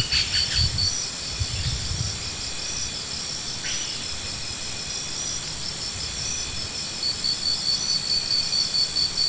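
Insects chirping: steady high-pitched trills throughout, with a fast, even train of high chirps in the first second and again from about seven seconds in. A few soft low thumps come in the first two seconds.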